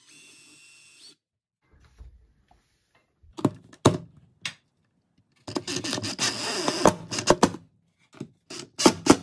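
Porter-Cable cordless drill running into a wall at the range hood's mounting-hole marks. There is a short whir at the start, a few sharp clicks, then about two seconds of grinding drilling or driving midway, and a quick run of clatters near the end.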